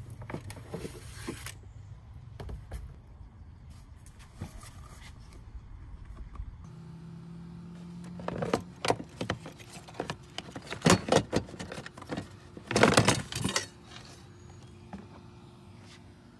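Hard plastic battery-tray parts and small metal hardware being handled: a few light clicks at first, then a run of sharp knocks and rattles from about halfway through, loudest near the end.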